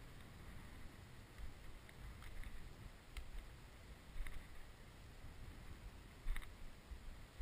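Faint wind rumble on the microphone, with a few soft crunches of footsteps through cut stubble.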